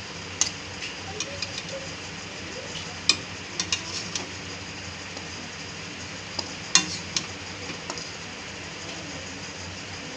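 Metal spatula clinking and scraping against a steel kadai and plate as cooked vermicelli is scooped out. The clicks are scattered and sharp, grouped around three seconds in and again near seven seconds, over a steady background hiss.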